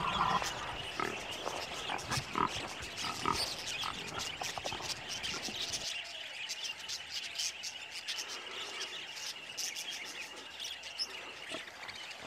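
Wild hogs grunting and feeding, with many small clicks and crunches over a steady high hum. About six seconds in the sound changes abruptly and the low rumble drops away.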